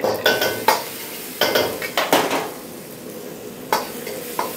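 A metal spoon scraping and knocking in a pan, about half a dozen strokes, as ginger and garlic fry in hot oil with mustard seeds, sizzling steadily underneath.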